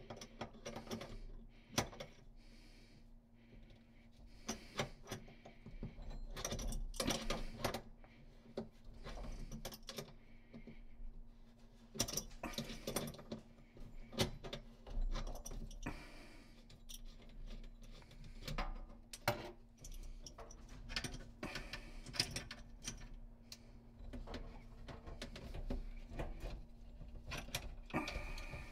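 Small metallic clicks and rattles of an adjustable wrench on the nuts of braided faucet supply hoses at chrome angle stop valves, loosening the hoses off. The clicks come irregularly, in short clusters.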